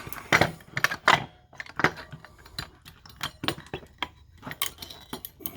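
Small metal parts of a hard disk drive clinking and clicking against each other as the drive is taken apart by hand: an irregular series of sharp clinks.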